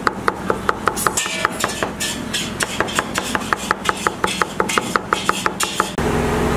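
Knife chopping fast and evenly on a cutting board through grated cauliflower stuffing with peas and green chillies, about five knocks a second. It cuts off suddenly near the end, giving way to a steady hum.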